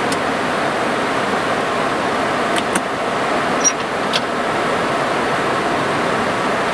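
Steady rushing noise in an MD-80 airliner's cockpit on descent, the constant hiss of air and engines in flight. A few faint clicks come about halfway through.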